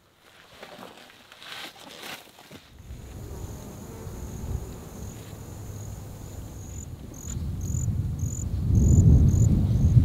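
An insect trilling on a steady high note, with short repeated pulses about twice a second in the second half. Under it a low rumble swells and is loudest near the end.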